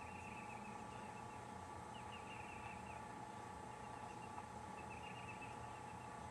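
Faint outdoor ambience: a bird chirping in short, rapid high trills, three times, over a steady faint hum.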